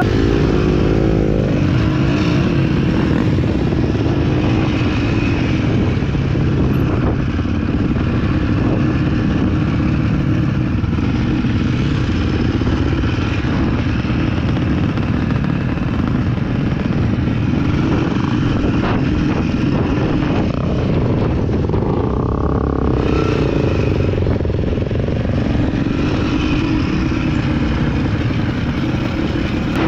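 Off-road dirt bike engine running under load while riding, heard close up, the engine note rising and falling with the throttle.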